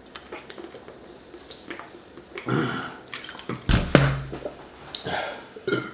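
Gulping carbonated soda straight from a 2-litre plastic bottle, the liquid glugging in the bottle, then the bottle set down on a wooden table with a thump a little under four seconds in.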